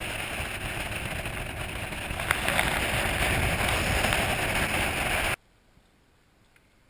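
Bass boat running at speed across open water, with heavy wind rush over the microphone and motor noise. The sound cuts off abruptly a little over five seconds in, leaving faint quiet with a few small clicks.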